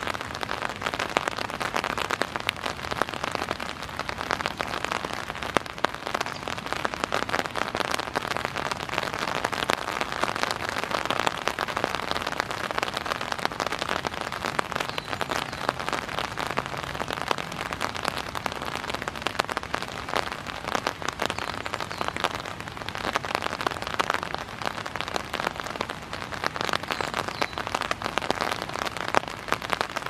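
Raindrops falling on an umbrella: a dense, continuous rattling of drop impacts.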